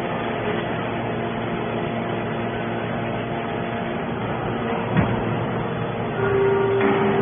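Hydraulic scrap-metal baler running with a steady machine hum, a single sharp knock about five seconds in, then the hum growing louder with a strong steady tone near the end.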